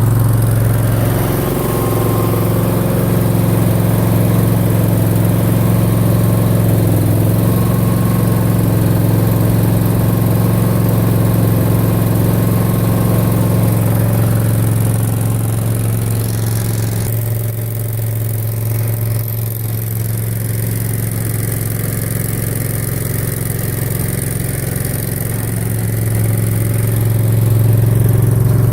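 Mini skid steer engine running steadily under a low hum. It drops in level about two-thirds of the way through, then rises again near the end.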